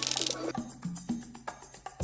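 Background music with a percussive beat: clicky, wood-block-like hits over low bass notes.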